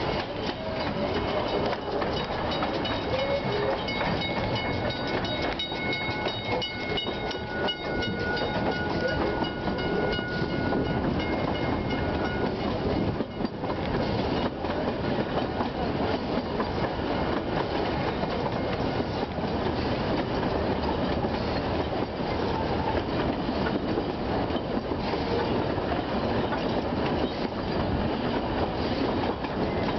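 Narrow-gauge steam train, hauled by NA-class 2-6-2T locomotive 14A, running steadily as heard from an open-sided carriage: a continuous rumble and clickety-clack of the carriage wheels on the rails. A thin high squeal, typical of wheel flanges on a curve, rings for several seconds in the first half.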